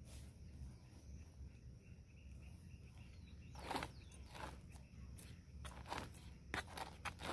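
Hand trowel scooping and scraping soil into a plastic plant pot: a run of short gritty scrapes starting about halfway through, the first one the loudest.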